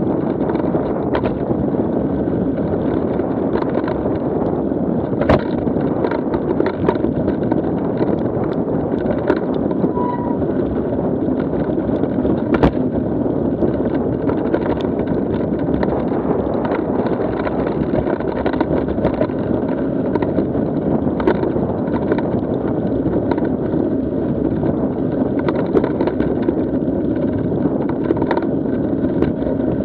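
Mountain bike rolling along a dirt singletrack, heard from a camera on the bike: a steady rumble of knobby tyres on dirt mixed with wind on the microphone, with a few sharp knocks from bumps in the trail.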